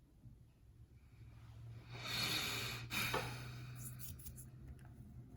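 A long, noisy exhale of breath, swelling about two seconds in and tailing off, followed by a few light clicks.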